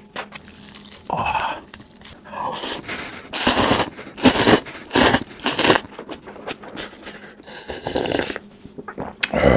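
A person slurping instant cup noodles in several loud, wet pulls, then slurping and gulping the broth straight from the paper cup near the end.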